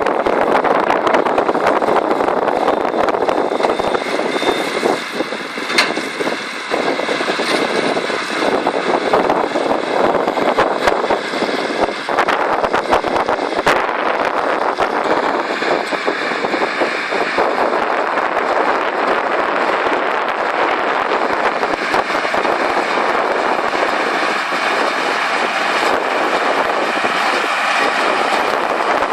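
Samwon SRB100 round baler running: a steady, loud mechanical clatter with scattered sharp clicks and knocks.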